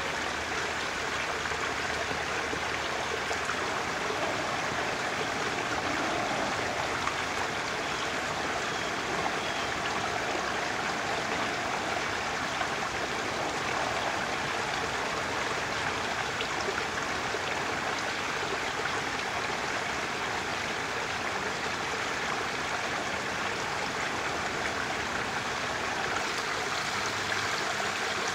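Steady rushing of running water, even and unbroken, with no calls or knocks standing out.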